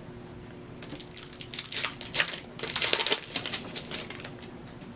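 Trading card booster pack's plastic-foil wrapper crinkling as it is handled and torn open, a dense run of crackles from about a second in until about four seconds in.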